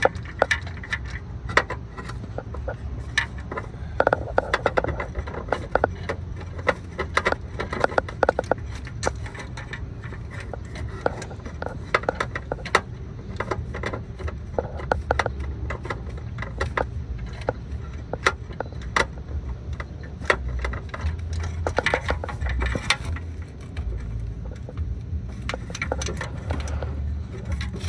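Irregular clicks, clinks and scrapes of a socket and hand tools on metal, worked by feel in a cramped engine bay, over a steady low rumble.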